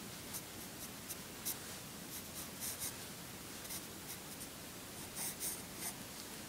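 Graphite pencil scratching on drawing paper in short, light sketching strokes, coming in small clusters with pauses between them.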